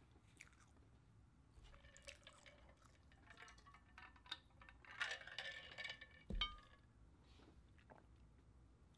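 Faint sounds of drinking water from an insulated metal bottle, with gulps and sloshing about five seconds in. A single knock follows as the bottle is set down on the table.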